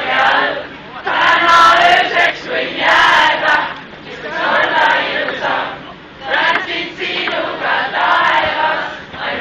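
Concert crowd singing along together in loud phrases of a second or two, with short dips between them.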